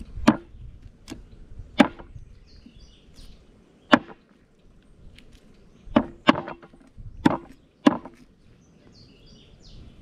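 A broad-bladed knife chopping through a fish onto a wooden cutting board: about seven sharp chops at uneven intervals, two of them close together around six seconds in.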